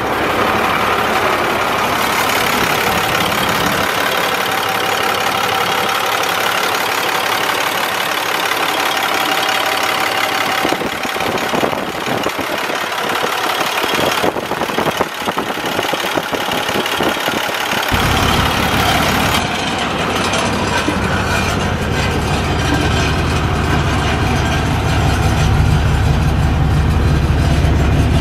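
A sewer truck's diesel engine idling steadily, with a loud whirring hiss throughout; a deep low rumble comes in strongly about two-thirds of the way through and holds.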